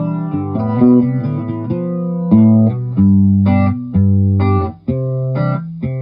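Electric guitar played through an A/DA Flanger effects pedal, a run of picked notes and chords with a short break a little before five seconds in.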